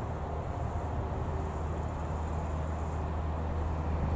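Airbus A340-300's four CFM56 turbofan engines on final approach: a steady low rumble with a constant hum, growing louder near the end as the jet nears.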